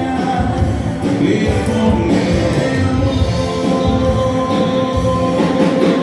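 Live dance band playing with a singer, amplified over the hall's speakers, with a steady beat.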